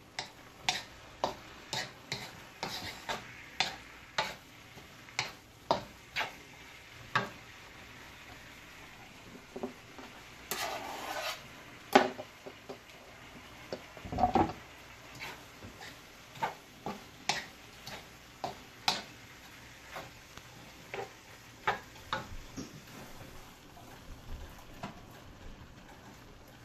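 Wooden spatula scraping and tapping against a wok while stirring minced meat and mushrooms, a sharp tap every second or so over a faint sizzle. There is a heavier thump about fourteen seconds in, and a wire whisk stirs in a small saucepan near the end.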